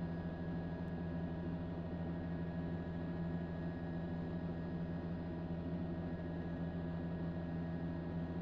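A steady low hum over a light hiss that does not change.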